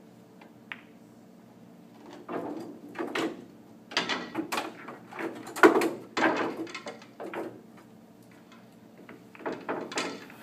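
One sharp click of a shot on a pool table, then several seconds of pool balls clacking and rattling together as they are gathered and set in the rack, with a few more knocks near the end.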